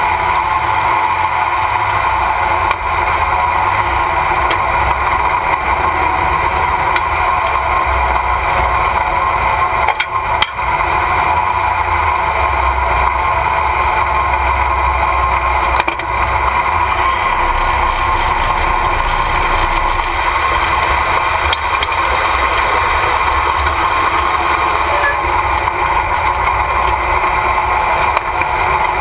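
Light modified pulling tractor's engine running steadily without revving up, heard close up from on board.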